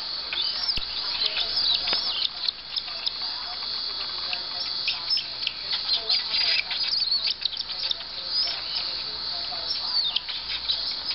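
Hand-fed cockatiel chick giving rapid, repeated high chirping begging calls at feeding time.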